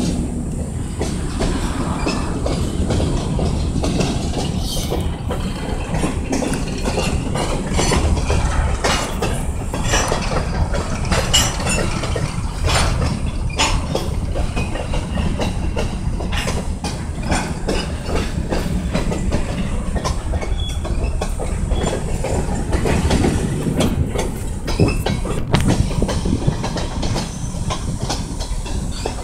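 Freight train of covered hopper cars rolling past, a steady rumble of steel wheels on rail broken by repeated clacks and clicks as the wheels pass over the track.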